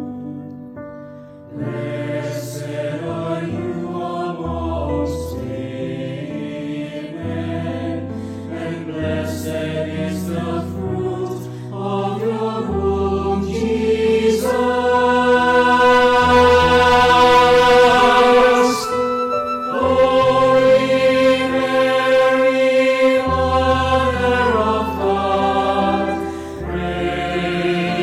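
Choir singing a slow sacred chant in long held chords over a stepping bass line. It grows louder about halfway through and dips briefly before carrying on.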